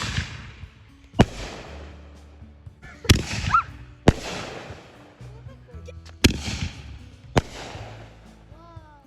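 Consumer fireworks going off: five sharp bangs a second or two apart, each trailing into crackling, with short whistles about three and a half seconds in and near the end.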